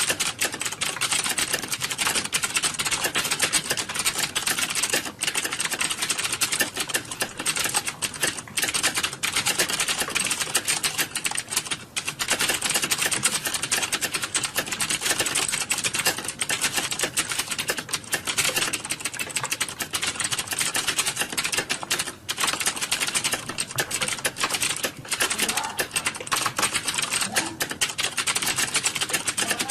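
Rapid, continuous typing on a computer keyboard, a dense run of key clicks with a few brief pauses.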